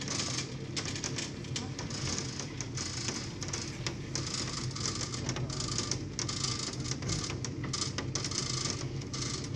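Open cable lift descending inside Þríhnúkagígur's crater: a steady low hum under irregular clicking and rattling from the lift cage and its cables.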